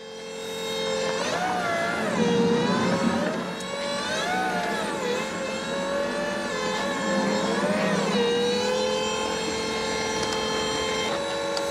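Solectrac electric compact tractor's drive motor whining steadily as it strains to pull out of a mud hole, the whine rising and dipping in pitch three times as the load changes.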